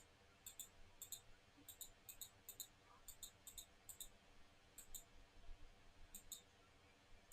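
Faint, sharp clicks coming in close pairs, about a dozen pairs spaced unevenly, against a very quiet room.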